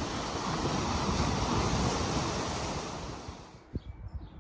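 Surf washing on a shore with wind buffeting the microphone, fading out about three and a half seconds in. Then a single click and faint bird chirps.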